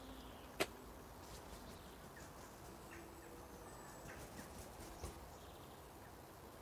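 Quiet background with scattered faint, short bird chirps, broken by one sharp click about half a second in and a smaller click about five seconds in.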